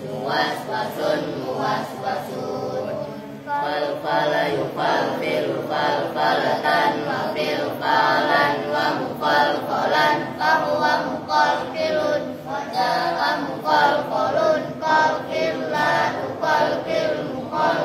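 A group of boys chanting an Arabic lesson in unison, a rhythmic sing-song recitation with many voices together.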